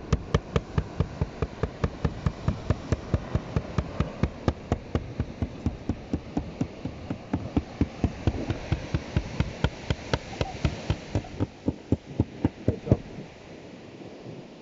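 Small metal mallet pounding squid bait on a plastic cool-box lid: a steady run of knocks, about three to four blows a second, that stops about 13 seconds in.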